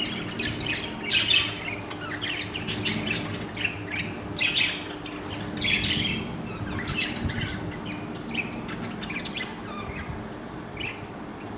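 Several small pet parrots chirping and chattering, many short calls overlapping at an uneven pace, over a faint steady low hum.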